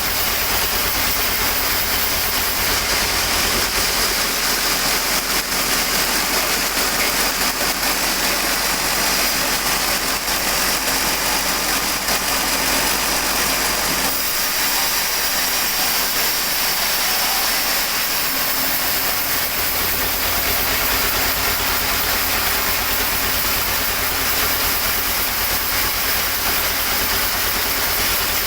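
Sawmill machinery running steadily: a loud, even mechanical noise with a hiss, unbroken throughout.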